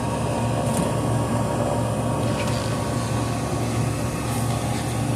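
Steady mechanical hum of an HVAC unit running, a constant low drone with a few faint steady tones above it.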